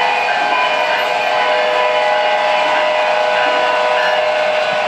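O-gauge model diesel locomotives pulling freight cars around a three-rail layout. The wheels rumble and clatter on the track under the locomotives' onboard electronic diesel sound effects, with a steady tone held from about a second and a half in to near the end.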